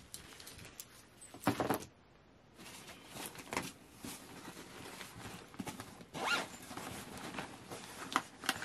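Rustling and scraping of the nylon fabric and zipper of a Wilson 2020 Roland Garros 6-pack racket bag as a hand opens a compartment and rummages inside. A short, louder rasp comes about one and a half seconds in, followed by lighter irregular rustles.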